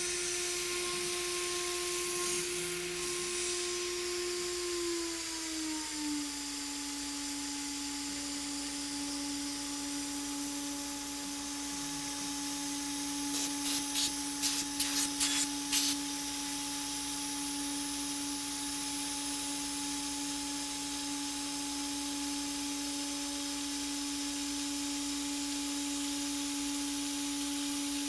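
CNCDepot S30C high-speed router spindle running with a steady whine while an end mill cuts aluminum. The whine steps down in pitch about five seconds in and then holds. About halfway through, a brief cluster of sharp ticks rises over it.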